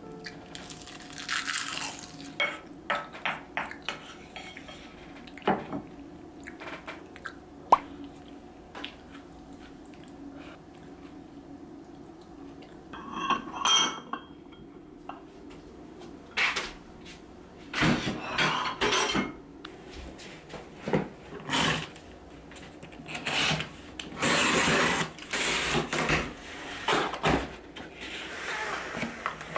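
Dishes and cutlery clinking and knocking, with a short ringing clink about halfway through and louder stretches of water noise in the second half.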